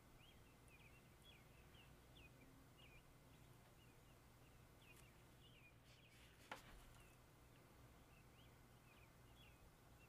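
Near silence: faint room tone with quiet, short high chirps repeating two or three times a second, and a single soft tap about six and a half seconds in.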